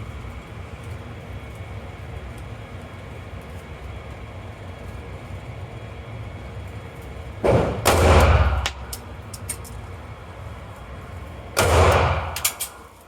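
Two loud handgun shots, the first a little past the middle and the second about four seconds later. Each is a sharp crack followed by about a second of booming ring.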